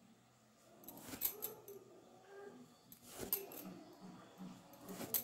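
Needle and red thread being drawn through stiff cross-stitch canvas held in an embroidery hoop: three short, soft scratchy rasps about two seconds apart as each stitch is pulled through.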